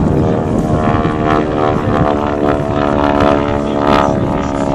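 North American Harvard (T-6 Texan) flying overhead: the steady drone of its Pratt & Whitney R-1340 nine-cylinder radial engine and propeller, holding an even pitch.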